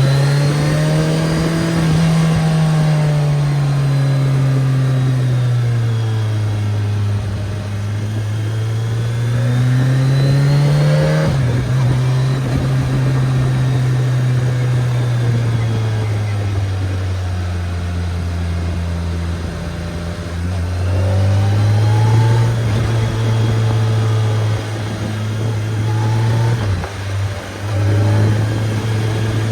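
BMW K1300S inline-four motorcycle engine under way, its note rising and falling with the throttle. The pitch drops sharply about eleven seconds in, and dips briefly again near the end.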